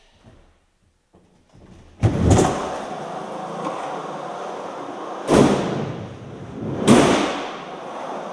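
Skateboard wheels rolling across a smooth skatepark floor: a steady rumble that starts about two seconds in with a knock, with two more sharp clacks of the board later on.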